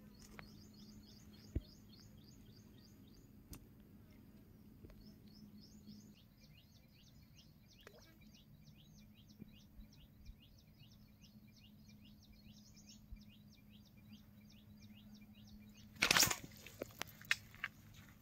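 A bird calling in a long, fast series of short, high, downward-slurred notes, about four or five a second, with a brief break about six seconds in. Near the end a loud, short rustle and a few knocks from someone moving in the bankside brush.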